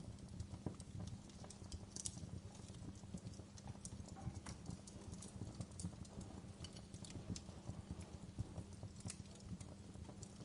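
Wood fire crackling: a steady low rumble of burning with irregular sharp pops and snaps of the logs.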